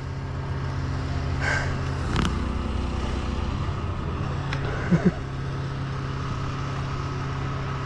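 Steady low hum of an engine running, with two brief sharp chirps just after five seconds in.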